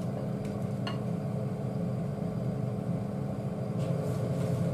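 Steady hum of a kitchen fan running, with one light tap about a second in as a saucepan touches a bowl while curry is poured.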